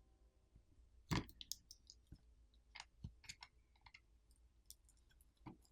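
Light clicks and taps of small tools and smartphone parts being handled, a dozen or so scattered ticks with the sharpest about a second in and another near the end.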